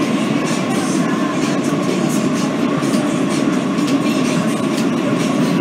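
Heard from inside a Kawasaki R160B New York City subway car: the train running at speed, with steady wheel and track noise and the clickety-clack of the rails.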